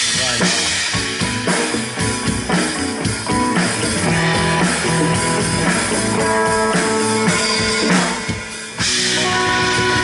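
Live band playing an instrumental passage: congas played by hand over a drum kit and electric guitars. Near the end the sound dips briefly, then cuts back in abruptly at full level.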